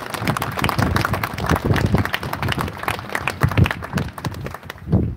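Crowd applauding, many hands clapping densely, dying away near the end.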